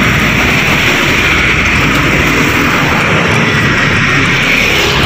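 Steady, loud noise of street traffic, cars and motorbikes running past on the road.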